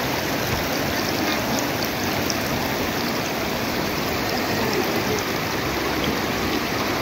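Shallow river flowing steadily over a rocky bed: an even rushing and rippling of water.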